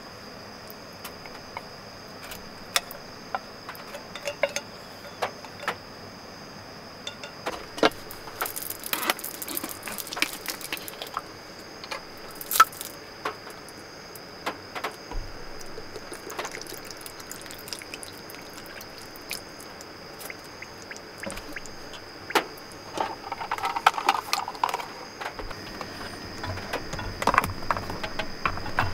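Metal chopsticks clicking against a tin can while canned food is scooped out, then water poured from a plastic bottle into an electric lunchbox cooker and its plastic lid pressed shut with clicks near the end. A steady high insect trill runs underneath.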